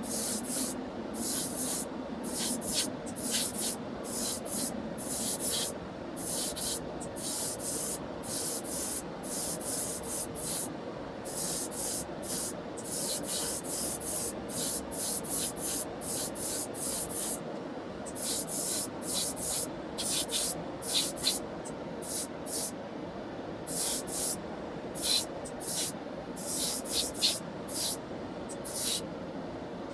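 Paint being sprayed in many short hissing bursts, roughly one or two a second, with a few longer pauses between passes.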